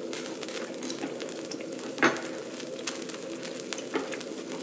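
Food sizzling on a hot grill pan over a portable gas stove: a steady frying hiss with many small crackles, and one louder click about two seconds in.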